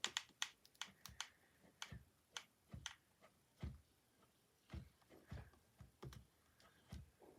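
Faint, scattered light clicks and taps of hands handling cardboard and a hot glue gun while gluing a piece onto a craft box, a quick flurry in the first second, then single taps, some with a dull knock.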